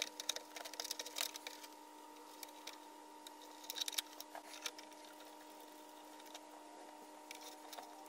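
Faint clicks and rustles of hands feeding wires with ring terminals through a metal toggle-switch panel, in two clusters, over a steady faint hum.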